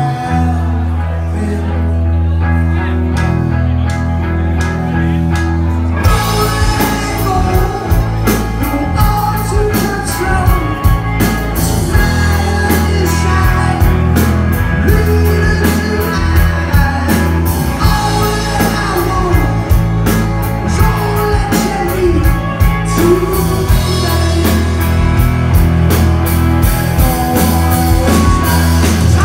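Live rock band playing: a sustained bass and guitar line for the first few seconds, then the drums and full band come in about six seconds in, with vocals sung over them.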